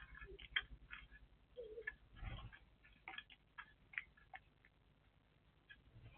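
Faint, irregular short chirps of small birds, with a brief soft noise about two seconds in.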